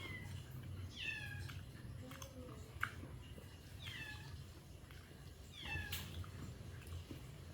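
Four short, high animal calls, each falling in pitch, about a second apart at first and then further apart, with a few light clicks between them.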